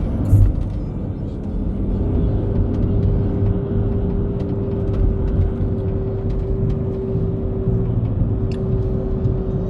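Steady low rumble of a moving road vehicle, with a single held tone coming in about two seconds in.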